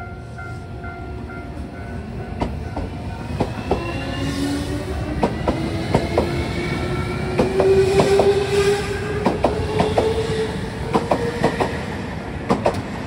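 JR Kyushu 305 series electric multiple unit pulling away and gathering speed: a motor whine climbs steadily in pitch from a few seconds in, over a low rumble and wheels clicking across rail joints.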